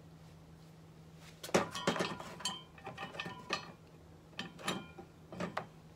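Electrical staples and other small metal hardware clinking and rattling in a metal tin as a hand picks through them: a run of light clinks with brief ringing, starting about a second and a half in.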